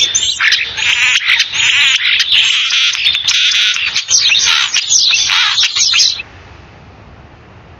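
Many small songbirds chirping and singing at once, a dense chorus of quick high chirps and sweeping whistles that cuts off about six seconds in, leaving faint hiss.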